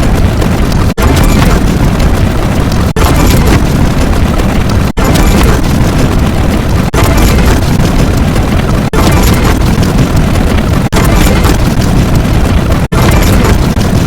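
Very loud, dense layered sound effect: a continuous wall of booming, explosion-like noise with heavy low end. It cuts out for an instant about every two seconds and restarts.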